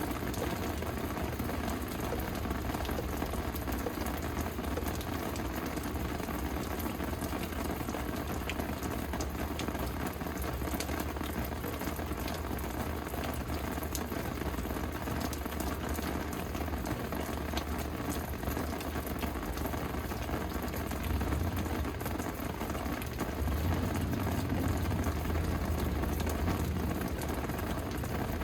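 Steady rain falling, with dense fine patter of drops on hard surfaces. A low rumble swells in the last few seconds.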